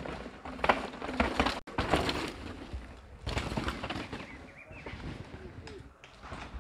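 Downhill mountain bike riding a loose, dry dirt trail: tyres skidding and crunching through the dirt in irregular bursts as the rider passes. The sound drops out for an instant about a second and a half in.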